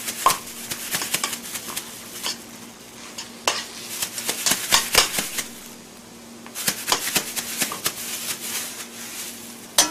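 A metal utensil scraping and clicking against a frying pan as pork and kimchi are stir-fried, with a faint sizzle. The irregular knocks and scrapes pause briefly midway.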